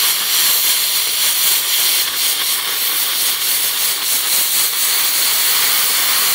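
Plasma cutting torch of a Hồng Ký HK 416 welder-cutter hissing steadily with its compressed-air arc as it cuts a hole through a steel flat bar.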